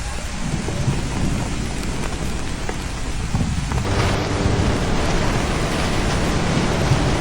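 Loud, steady rushing of water with a deep low rumble; the sound turns brighter and hissier about four seconds in.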